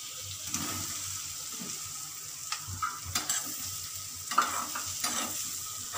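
Marinated paneer cubes sizzling as they shallow-fry in melted butter in a small steel kadhai, with a spoon scraping and tapping against the pan. The sharpest tap comes a little past the middle.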